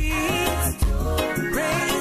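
Reggae gospel song playing: a sung vocal line over a steady beat with bass.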